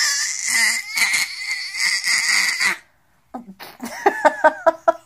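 Baby squealing, one long high-pitched squeal lasting nearly three seconds. After a short pause comes a quick run of rhythmic giggles, about five a second.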